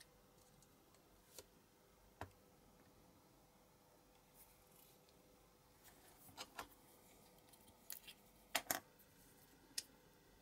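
Scattered small clicks and taps from a diecast model airplane and its small parts being handled on a cutting mat, with a sharper pair of clicks about eight and a half seconds in. In between it is near silent.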